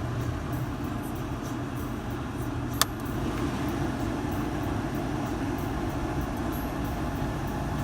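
Steady running noise inside a Subaru Pleo with its automatic air conditioning on, with a single sharp click about three seconds in.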